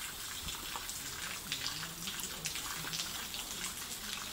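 Rain falling steadily, with the short sharp ticks of individual drops striking hard surfaces throughout.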